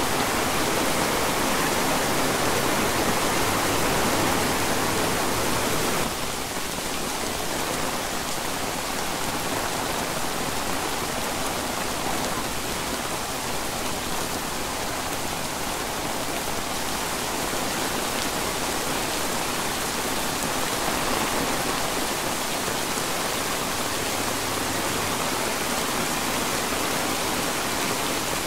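Heavy rain falling steadily on pine forest and grass, an even hiss of downpour that eases slightly about six seconds in.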